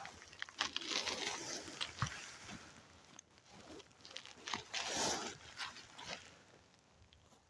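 Dry leaves and twigs rustling and crunching underfoot in uneven bursts, with a few sharp snaps.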